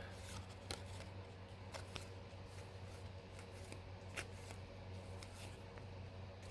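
Baseball trading cards being flipped through by hand: faint, scattered flicks and clicks of card stock, over a low steady hum.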